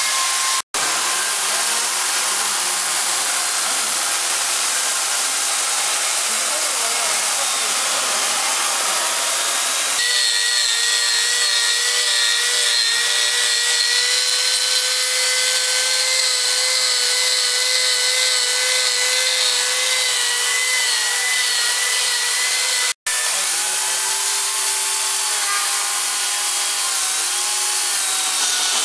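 Electric wood-carving power tools cutting wood: a multi-cutter carving out the hollow of a log trough and a corded electric chainsaw cutting a wooden block. A steady high motor whine wavers in pitch as the cutter bites, and its tone changes twice at brief cuts in the sound.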